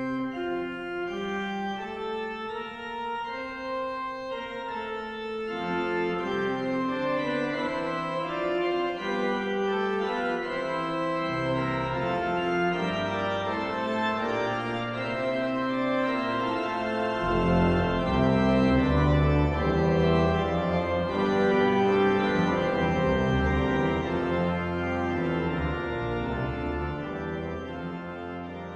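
Organ playing a fugue in several voices. It starts with a single line, further voices enter one after another, and a deep bass joins about seventeen seconds in, thickening the sound.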